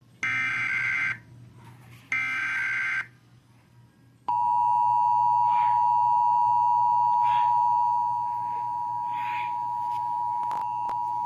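Emergency Alert System SAME header: two bursts of digital data tones, about a second each. Then the EAS two-tone attention signal (853 and 960 Hz) sounds steadily for about seven seconds, dropping slightly in level partway through, and cuts off.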